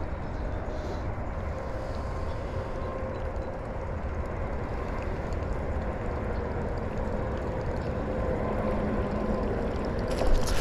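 Steady low rumble and hiss with faint humming tones while a topwater lure is retrieved. Near the end comes a sudden loud splash: a largemouth bass striking the Whopper Plopper close to the bank.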